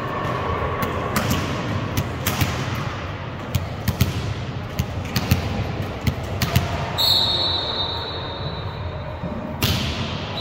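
Volleyballs being hit and bouncing on a gym floor, a string of sharp thumps over a steady background hubbub. A high steady tone sounds for a couple of seconds about seven seconds in.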